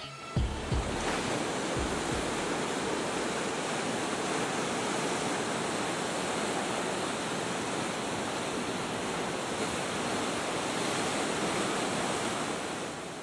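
Steady rush of ocean surf, an even wash of breaking waves with no change in level.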